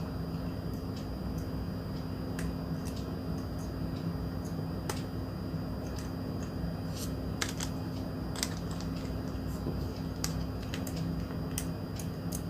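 Light, irregular clicks and ticks of a screwdriver and small plastic parts as screws are backed out of a plastic massage vibrator housing. A steady low hum runs underneath.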